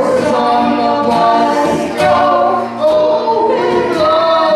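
A drum teacher and a group of young children singing a song together, in held sung notes.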